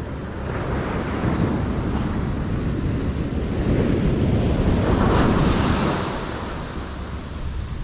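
Ocean surf breaking and washing up a sandy beach, swelling to its loudest around five seconds in, then easing. Wind rumbles on the microphone throughout.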